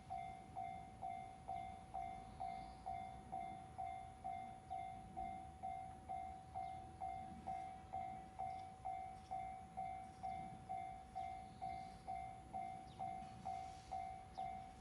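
Japanese railway level-crossing warning alarm ringing in an even, unbroken rhythm of about two strikes a second, over a faint low rumble.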